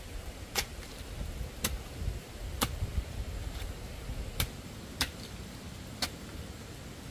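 A series of sharp knocks, roughly one a second, over a steady low rumble.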